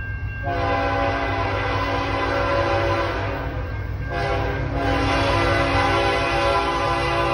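Canadian National freight locomotive's air horn sounding two long blasts, with a short break about three and a half seconds in, over a steady low rumble.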